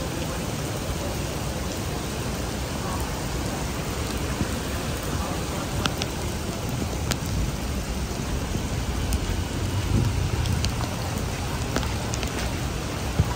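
Heavy rain pouring onto a wet city street and pavement, a steady hiss with a few sharp drip ticks. A low rumble swells about ten seconds in.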